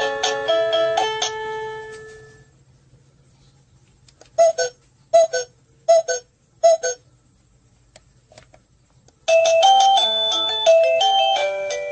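Sadotech Model C wireless doorbell chime playing an electronic melody that dies away over the first couple of seconds, then four short beeps a little under a second apart, then another electronic melody starting about nine seconds in.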